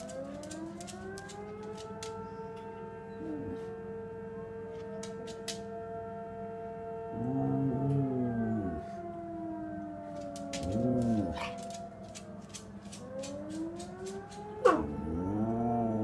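Fire station siren winding up in pitch and then holding a steady wail, while a Samoyed howls along three times, each howl arching up and down in pitch. The howls are the loudest sounds, about halfway through, a few seconds later, and near the end.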